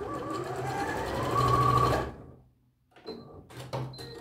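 Bernette b38 computerized sewing machine stitching a seam, its motor speeding up with a rising pitch, then stopping about two seconds in. A few light clicks follow as the fabric is handled at the machine.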